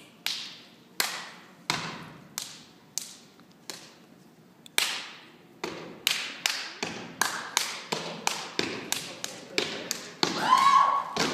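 Step routine: sharp foot stomps and body slaps on a wooden stage floor. They come about one a second at first and quicken from about six seconds in, with a short shouted call near the end.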